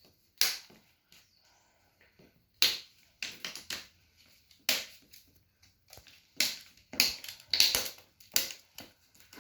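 Plastic screen bezel of an ASUS VivoBook E203M laptop being pried off with a pry tool: a string of sharp snaps and clicks as its clips pop loose, irregularly spaced and coming thicker near the end.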